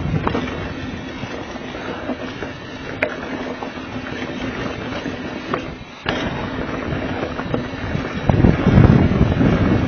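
Downhill mountain bike ridden fast over a dirt trail, heard from a handlebar-mounted camera: wind buffeting the microphone over the rattle and crunch of the tyres and bike. Sharp knocks and clicks from trail impacts come through, one of them a hard knock about six seconds in, and the wind rumble grows heavier near the end.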